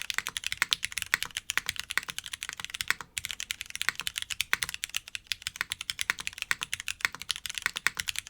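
Fast typing on an F1-8X V2 mechanical keyboard fitted with Cherry MX Blossom switches: a rapid, continuous clatter of keystrokes with a short pause about three seconds in.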